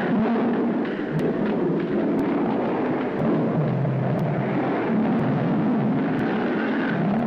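Loud, continuous rough rumbling noise, with faint ticks about once a second.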